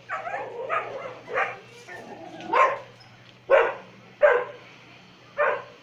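A dog barking about seven times in short, separate barks, the loudest four in the second half, about a second apart.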